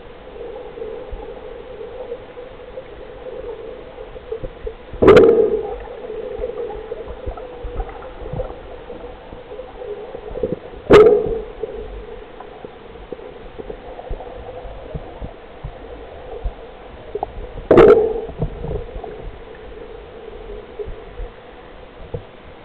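Underwater recording of a diver's exhaled air bubbles gurgling out in a short burst about every six seconds, three times, with a faint steady hum of the water between.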